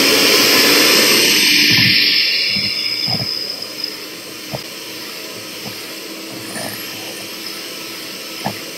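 Handheld electric mixer running, its beaters whisking lemon juice into cupcake batter in a metal bowl. It is loudest for the first couple of seconds, then settles to a lower steady whir with a few light knocks.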